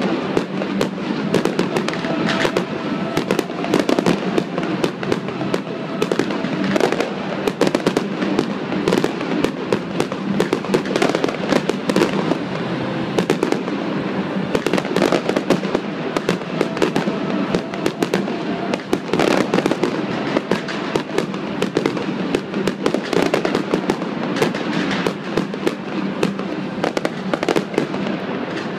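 Fireworks display: a dense, unbroken run of bangs and crackling shell bursts.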